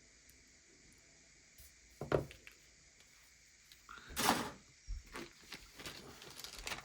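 Small objects handled on a work surface: a knock about two seconds in, a short loud rustle about four seconds in, then light clicks and rustling.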